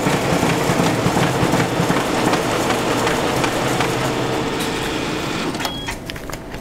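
RISO ComColor GL9730 inkjet printer running at full speed, printing single-sided at about 160 pages per minute: a steady mechanical whir with a fast run of paper-feed clicks, easing off near the end.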